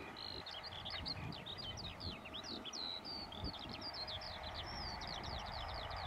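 Small birds chirping and warbling rapidly and continuously, over the steady hum of a distant tractor and round baler at work.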